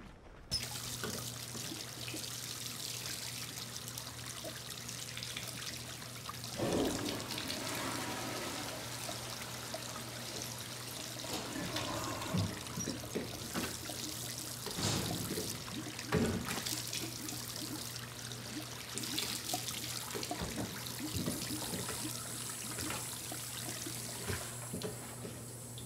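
Water tap running steadily into a sink, starting suddenly about half a second in, with louder splashes now and then as hands scoop water, over a steady low hum.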